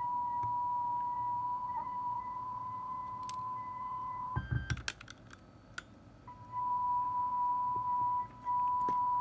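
Steady test tone near 1 kHz from a speed-test cassette playing in a Sony Walkman WM-EX85, its pitch showing the tape speed while the motor's speed trimmer is adjusted for a tape that runs a bit slow. A little past the middle the tone breaks off for about two seconds, with a few sharp clicks and a low knock, then resumes.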